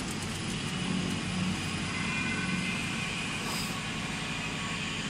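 Small offset printing press running steadily, its shaft of numbering heads turning: an even mechanical whir with a low hum.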